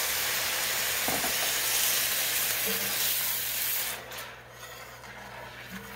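Water poured into a hot skillet of sautéed onions, mushrooms, celery and flour roux, sizzling steadily. The sizzle drops away abruptly about four seconds in as the pan cools.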